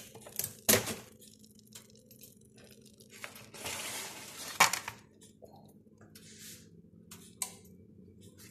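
Kitchen handling sounds: a few sharp clinks and knocks of dishes or a pan, and about a second of crisp crackling noise midway through.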